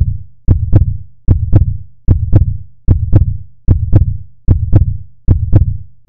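Heartbeat-like double thumps on the logo's outro sound, a deep lub-dub pair repeating steadily about every 0.8 seconds, each beat with a sharp click on top.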